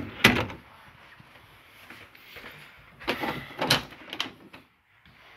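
Interior panelled door being handled and opened: a sharp latch click and a knock at the start, then a cluster of knocks and rattles about three seconds in.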